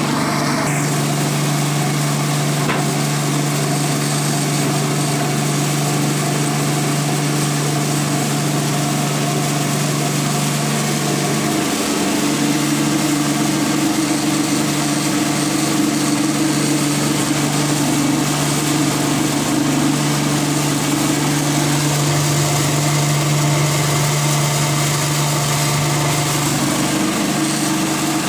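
Ostad Gold 4 rice mill, driven by an electric motor, running steadily while milling paddy: a constant mechanical hum under a hiss of grain rushing through the machine. It grows slightly louder about twelve seconds in.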